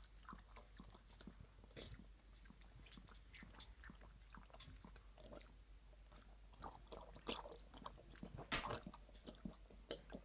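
Afghan hound lapping water from a metal bowl: faint, irregular wet tongue laps and small splashes, a little louder and quicker near the end.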